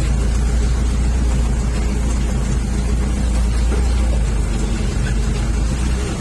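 Diesel engine of a Toyota FJ40 running steadily with a low, even rumble.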